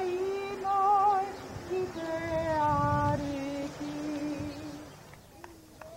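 A woman's solo voice singing in long held notes, wavering about a second in, then stepping down in pitch and fading out near five seconds in. A few faint clicks follow.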